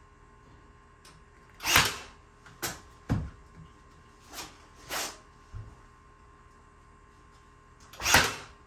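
A series of irregular knocks and clunks from handling the wooden kitchen island and tools, about seven in all, the loudest about two seconds in and near the end.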